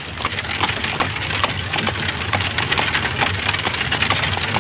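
Dense, irregular crackling and clicking over a steady low hum.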